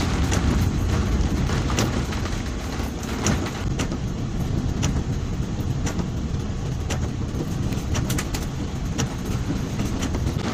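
Vehicle cabin noise while driving on a wet road: a steady low rumble from the engine and tyres, with scattered sharp clicks and knocks.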